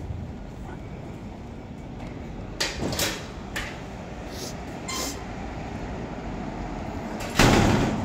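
A heavy green metal door being opened, with a few clacks of the latch and handle, then swinging shut with a loud bang near the end. A steady rumble of traffic runs underneath.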